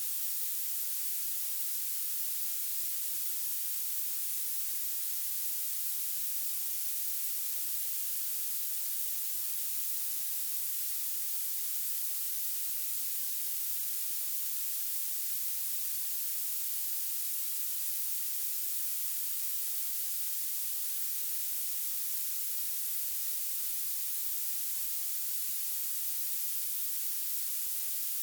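Violet noise: a steady, unchanging synthetic hiss with nearly all its energy in the highest treble and almost nothing in the bass.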